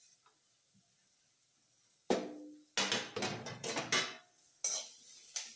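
Steel utensils: a sharp metal clank with a brief ring about two seconds in, then a metal spoon clattering and scraping in a steel kadhai as green peas are stirred, with a couple of sharper clinks near the end.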